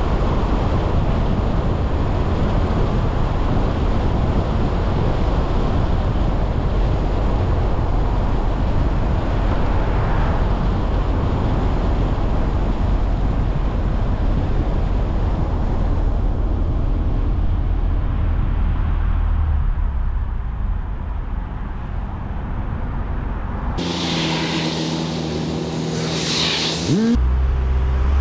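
Steady road noise of a moving car, tyres and wind, easing off as the car slows for an intersection. Near the end a louder, brighter sound with a pitch that rises sharply lasts about three seconds.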